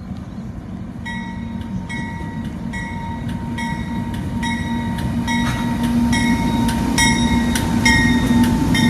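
Freight train hauled by NR class diesel-electric locomotives approaching, its engine drone growing steadily louder, with a steady higher whine. Sharp ringing clicks repeat a little more than once a second from about a second in.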